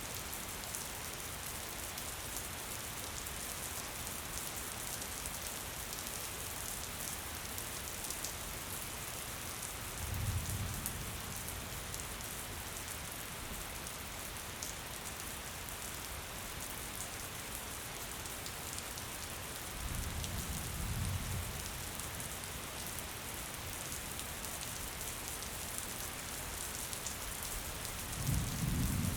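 Gentle rain falling steadily, an even hiss with scattered light drop ticks. Three short low rumbles break through: about a third of the way in, about two-thirds in, and at the end.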